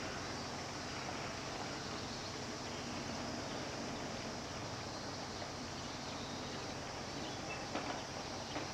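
Steady outdoor background hiss with no clear source, with a brief faint chirp and a couple of light clicks about eight seconds in.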